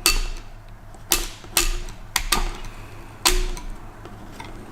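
Light metallic clicks and clinks, about six of them in a few seconds, some ringing briefly: small steel piston rings being handled and set down on a hard surface.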